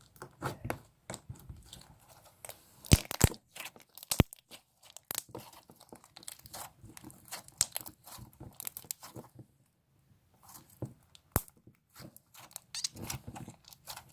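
Slime being squished and stretched by hand, giving irregular sharp clicks and crackles with a short pause about two-thirds of the way through.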